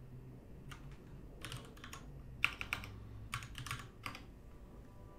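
Typing on a computer keyboard: several short runs of quick keystrokes, with a few pauses between them.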